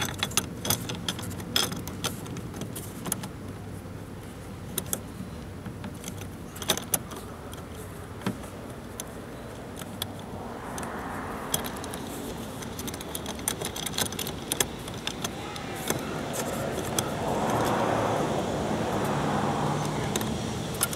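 Small metallic clicks and rattles of bolts and a metal license plate being handled and hand-threaded into a bolt-on license plate bracket. A vehicle passes in the background twice, swelling about halfway through and again near the end.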